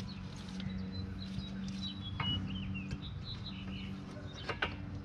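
Small birds chirping over a steady low hum, with a few light metallic clicks from brake pad hardware being handled at the caliper bracket, one about two seconds in and a quick cluster near the end.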